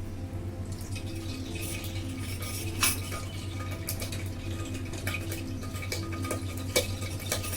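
Ghee being spooned into a hot pressure-cooker pan: sharp clinks of a spoon against the metal, with a soft crackling sizzle from about a second in.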